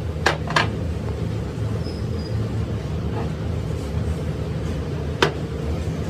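Sharp metallic clinks of steel hydraulic-jack parts (the threaded ram and its hex nut) knocking together and against a steel workbench: two in quick succession near the start and one about five seconds in, over a steady low background rumble.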